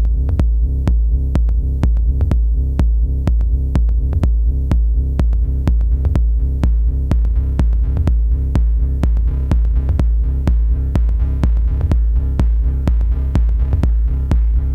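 Electronic dance music played live on drum machine and synthesizers: a steady, pulsing deep bass under sharp drum hits about four a second, with more high layers coming in a few seconds in.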